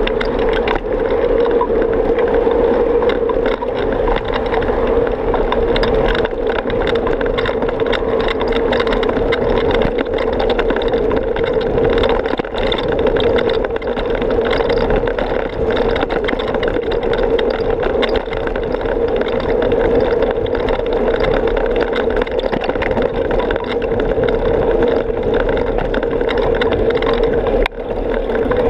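Steady rushing wind and road noise on a camera carried on a moving bicycle, with a brief dip near the end.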